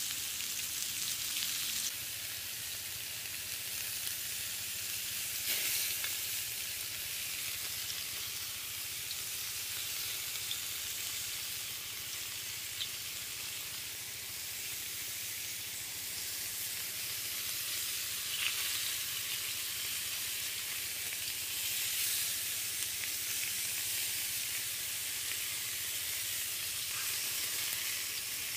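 Pork-wrapped mushroom skewers sizzling steadily on a hot grill pan over an open fire, with a few small pops now and then.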